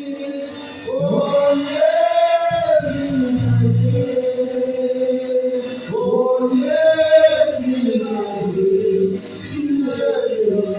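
Gospel song sung by voices, with long held, sliding notes and a light instrumental backing.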